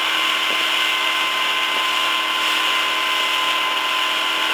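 Small boat's outboard motor running at steady speed, a constant even-pitched whine over the rush of wind and water.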